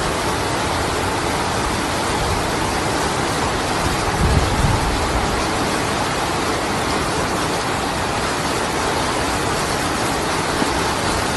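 Heavy rain and floodwater rushing down a street in a steady, even wash of noise, with a brief low rumble about four seconds in.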